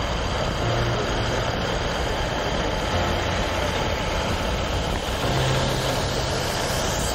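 WLtoys 144001 radio-controlled car driving over paving slabs, heard from a camera mounted on the car: a steady rumble of tyres, drivetrain and motor.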